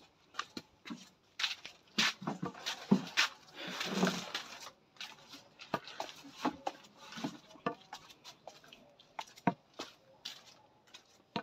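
Footsteps going down stone steps: a string of irregular taps and scuffs.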